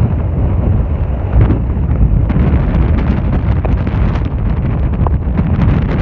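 Strong gusty wind, about 30 mph gusting to 45, buffeting the microphone in a loud, uneven low rumble.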